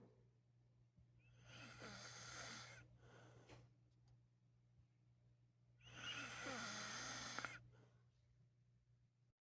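A sleeping person snoring faintly: two long snores about four seconds apart, with a weaker breath between them, over a steady low hum.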